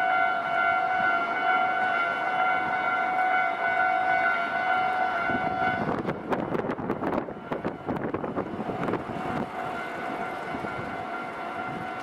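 Japanese level-crossing warning bell ringing steadily. About halfway through, a train passes over the JR Kisei Main Line crossing, its wheels clattering over the rail joints for a few seconds, and the bell is fainter afterward.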